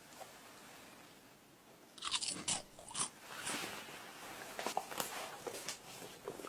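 Close-up crunching and crackling, irregular clicks that start about two seconds in after a quiet start.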